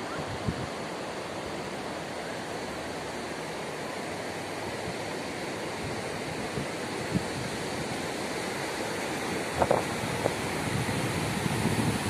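Ocean surf breaking and washing up the shore, a steady rushing, with wind buffeting the microphone. A few brief bumps come about ten seconds in, louder than the surf.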